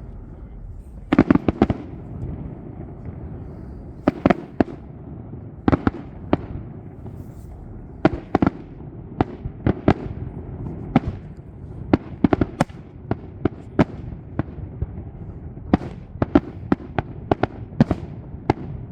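Aerial fireworks shells bursting: an irregular series of sharp bangs, some single and some in quick clusters of two to four, over a steady low background rumble.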